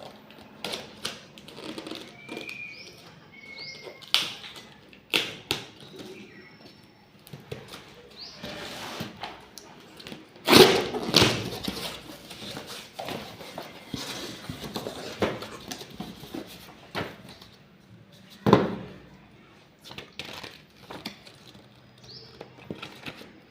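Unboxing handling noise: cardboard and plastic packaging rustling and knocking, with two loud thuds, about halfway through and again near three-quarters, and a few short high squeaks.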